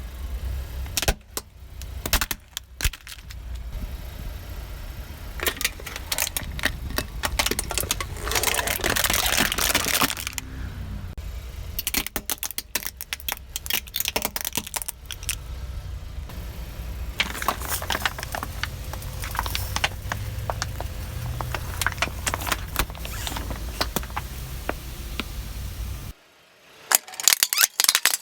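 Crackling and crunching of objects being crushed under a car's tyres, over the low rumble of the car. The crackle is densest about a third of the way in. Near the end the rumble stops abruptly and only scattered sharp clicks remain.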